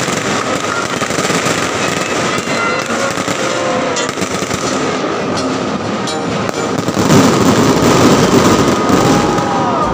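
Aerial fireworks display: many bursts crackling and popping over one another in a continuous crackle, growing louder about seven seconds in.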